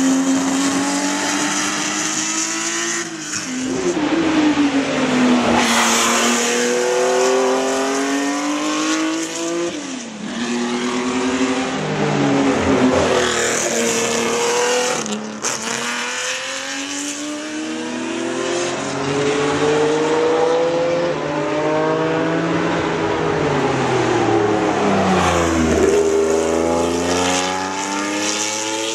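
Vintage Ferrari race cars with V12 engines passing at speed on a circuit, one after another, each revving up through the gears and dropping in pitch as it goes by.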